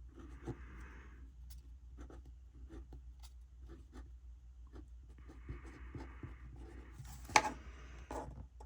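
A pen writing on paper: two runs of short, scratchy strokes with small taps between them, and one sharp click about seven and a half seconds in.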